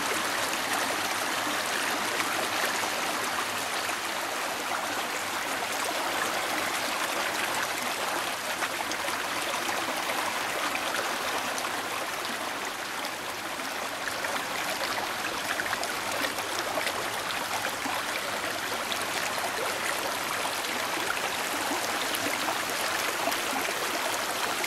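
A stream running steadily, a constant even rush of water.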